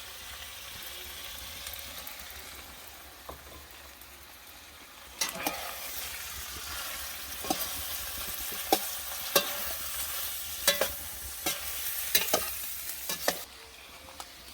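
Shrimp and garlic sizzling as they fry in a pan. From about five seconds in, a utensil clicks and scrapes against the pan once or twice a second as the food is stirred, stopping near the end.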